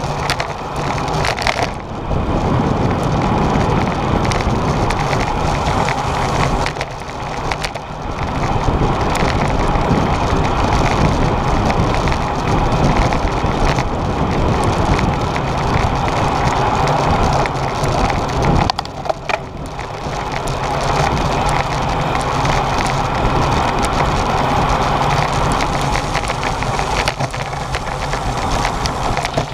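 Wind buffeting a bicycle-mounted action camera's microphone, mixed with the rumble of tyres and road vibration, as the bike rides at race speed. It is loud and rough throughout, easing briefly twice.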